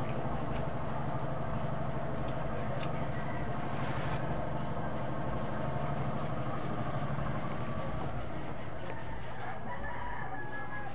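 Chickens clucking and a rooster crowing in the background, over a steady low hum.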